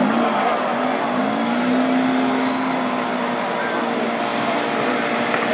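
A car engine running, its pitch rising about a second in and holding steady for about two seconds before it settles, over a steady din of other engines.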